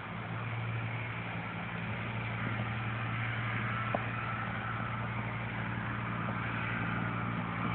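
A steady low hum of an idling engine, even throughout, with a faint click about four seconds in.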